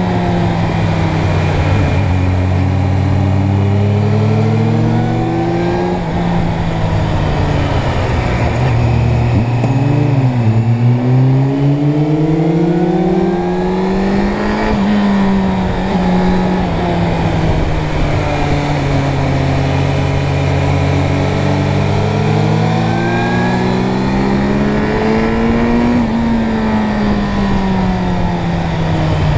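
Suzuki Bandit 600 inline-four motorcycle engine under way, its revs rising and falling repeatedly as the rider accelerates out of bends and rolls off into them. Near ten seconds in the pitch drops sharply and climbs again.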